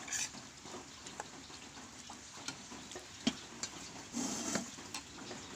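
Eating utensils stirring and tapping in a bowl of food: scattered light clicks, with a short rustling scrape at the start and another about four seconds in.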